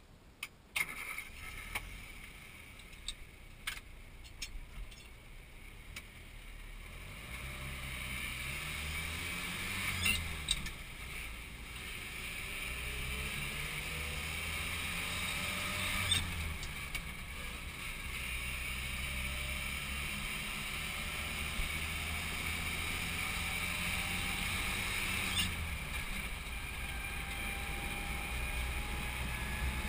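1984 Land Rover Series III driving, heard from inside the cab: the engine note rises as it accelerates and drops back with a click at each of about three gear changes, growing louder as it gains speed. A few sharp clicks come in the first few seconds.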